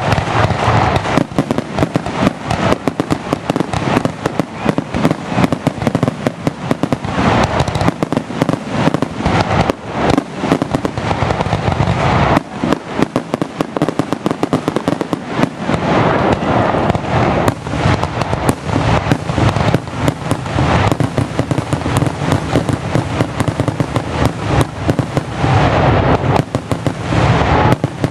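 Aerial fireworks shells bursting in a dense, unbroken barrage of booms and crackling, many reports a second, heard from close beneath the bursts.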